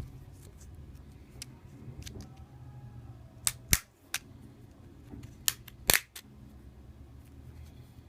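Sharp plastic clicks and snaps as a guitar pick is worked around the seam of a Samsung Galaxy S4's housing and its retaining clips pop loose: two clicks near the middle, then a cluster of about three some two seconds later.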